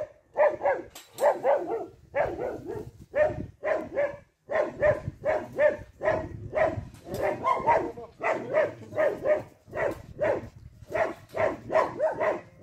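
A dog barking over and over in short, pitched barks, about two or three a second without letting up.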